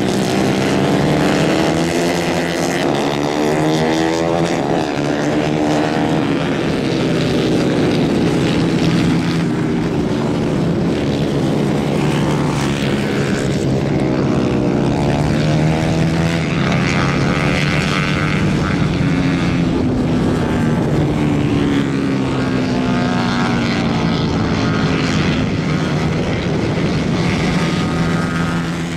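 Several 150 cc Kayak-class kart engines racing together, revving up and down, their pitches rising and falling as the karts pass.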